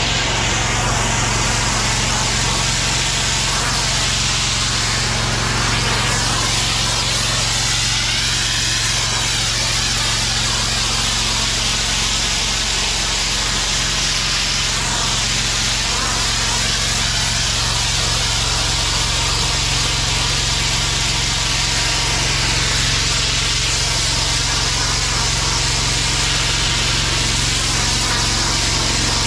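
Pressure washer running steadily, its engine hum under the constant hiss of high-pressure water spraying.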